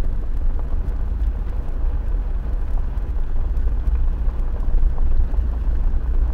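Steady low rumble of a car driving slowly along an unpaved gravel track: engine and tyre noise heard from inside the cabin.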